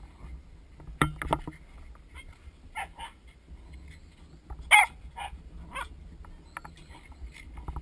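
Pembroke Welsh corgis barking while play-fighting: short, sharp barks at irregular intervals, several close together about a second in and the loudest about five seconds in.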